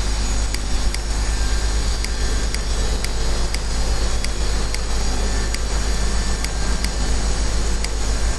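Steady background hum and hiss with faint high ticks recurring a few times a second.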